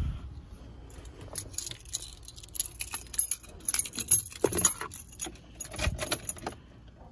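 A ring of keys jangling and clinking, with small irregular clicks and knocks, as the key is brought to the steering-column ignition.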